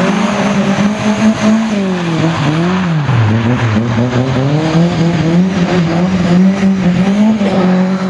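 Lada 2107 rally car's engine revving hard as the car slides through a gravel corner, its pitch dropping away about two to three seconds in and then climbing and holding again, over the noise of tyres scrabbling on loose gravel.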